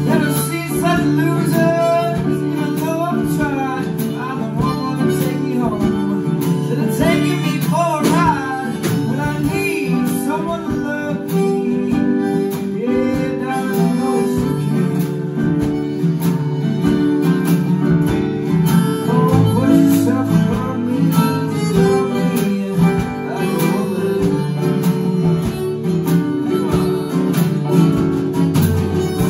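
A live band plays an instrumental jam: a harmonica plays a wavering, bending melody over strummed acoustic guitar, a drum kit and a keyboard.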